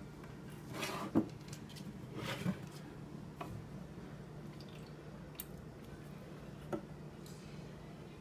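Small plastic food-colouring squeeze bottle being squirted into a flask of vinegar: two soft squirts within the first few seconds, then a few light plastic clicks as bottles and caps are handled.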